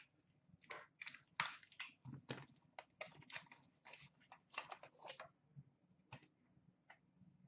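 A cardboard box and the hard plastic cases of graded cards being handled: a string of short, irregular scrapes, rustles and clicks as the cased cards are slid out of the box.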